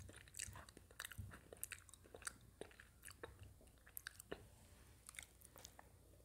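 Close-miked chewing of food: soft, irregular mouth clicks and smacks, growing sparser near the end.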